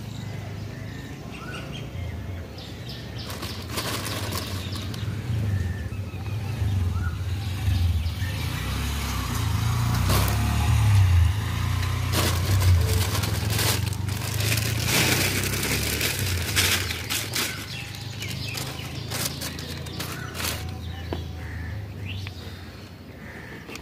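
Soft crackling of hands pressing loose soil into a pot around a plumeria cutting, over a low, uneven rumble that swells in the middle and fades near the end. A few short bird chirps.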